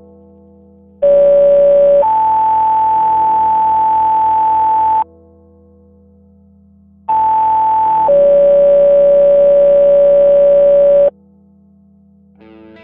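Fire dispatch two-tone sequential paging tones, two pages in a row. Each page is a one-second tone followed by a steady tone of about three seconds at another pitch, the first going low to high and the second high to low. This is the alert that tones out fire station units before the voice dispatch.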